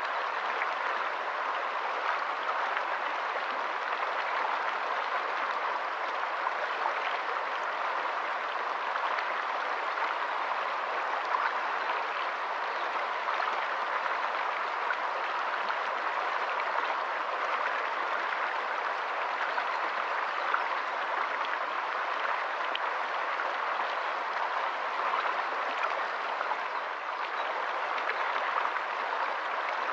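Shallow rocky stream running over stones: a steady rush of water over the riffles, with small splashes flecking it throughout.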